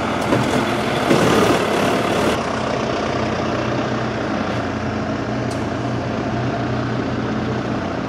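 Tractor diesel engine idling steadily, with a short rush of noise between one and two seconds in.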